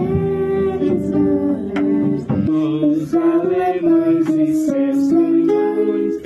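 A young girl singing long held notes, accompanied by guitar.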